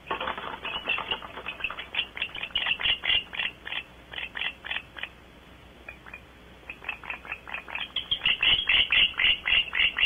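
An animal calling in a rapid series of short chirps, about four or five a second, in two bouts with a brief pause around the middle; the second bout is louder.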